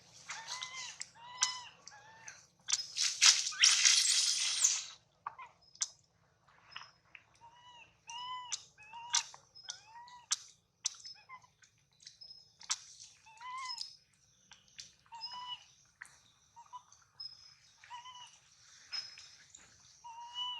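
Baby monkey crying in short, repeated, arching squeals, one every half second or so, with a louder noisy stretch about three to five seconds in.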